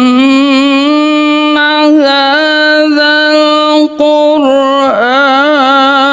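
A man reciting the Quran in the melodic tilawah style, his voice held on long high notes with wavering melismatic ornaments. One long phrase is broken by a short breath about four seconds in.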